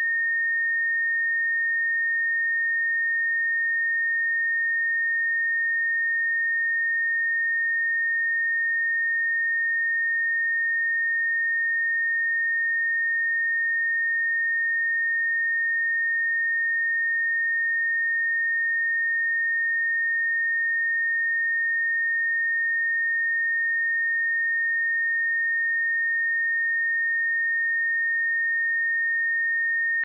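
A pure 1838 Hz sine-wave test tone, a single steady high-pitched tone that holds without change.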